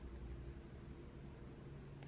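Quiet room tone with a steady low hum and faint hiss; no pen or keyboard strokes stand out.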